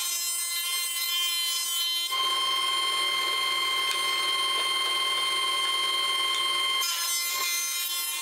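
Jointer running, its spinning cutterhead giving a steady whine as a rough board is fed across it with a push block. The whine grows louder about two seconds in and gives way to a rougher, noisier sound near the end.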